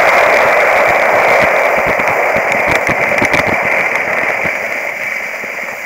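Skis sliding and scraping over packed snow, a loud close hiss with scattered clicks and crackles, picked up by a camera strapped to the ski boot; the hiss slowly eases as the skier slows down.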